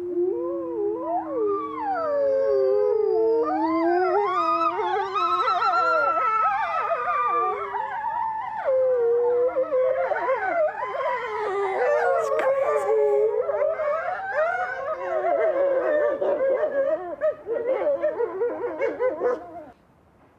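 A pack of wolves howling together in chorus, many long calls overlapping and gliding up and down in pitch. Near the end the calls turn shorter and choppier, then stop.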